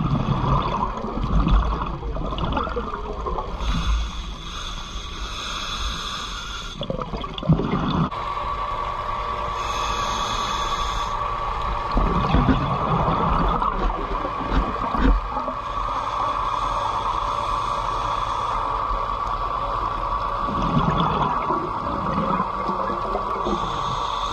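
Underwater sound picked up by a diver's camera: a scuba regulator's breathing, with hissing inhalations lasting a second or more and low bubbling exhalations between them, over a constant rumble of water and a steady hum.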